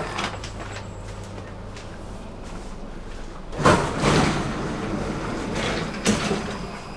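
Stockholm metro train's sliding passenger doors opening with a loud thud about halfway through, followed by a couple of seconds of rumbling noise, over the steady hum of the stopped train. A second sharp knock comes near the end.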